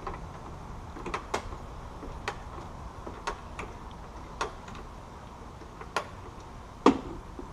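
Scattered sharp clicks and knocks, roughly one a second at uneven intervals, with a louder knock near the end: hand tools and metal parts being handled during shock work on a truck.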